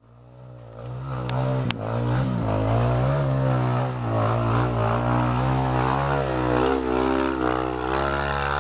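Enduro dirt bike engine revving up and down as the bike climbs a muddy trail, growing louder over the first couple of seconds as it nears and passes close by. Two sharp clicks sound about a second and a half in.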